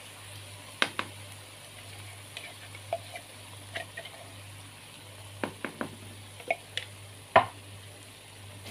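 Ground spice paste sizzling softly in oil in a nonstick wok, with a dozen or so sharp taps and scrapes of a plastic spatula against the pan as it is stirred; the loudest knock comes near the end. The paste is being sautéed until fragrant and its water cooks off.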